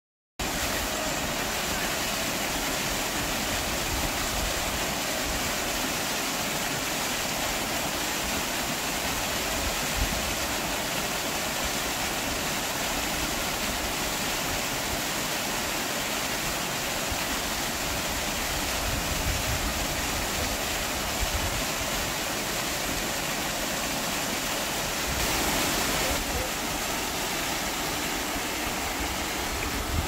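Waterfall plunging over rock into a deep pool: a steady rush of falling water that starts suddenly about half a second in.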